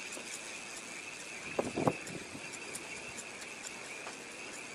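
Spinning reel being cranked by hand to retrieve a metal jig, with faint ticks over a steady high hum. A short knock, doubled, just under two seconds in is the loudest sound.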